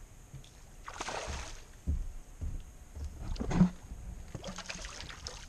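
A hooked fish splashing at the surface of the water beside a wooden dock, with a few dull thumps in between.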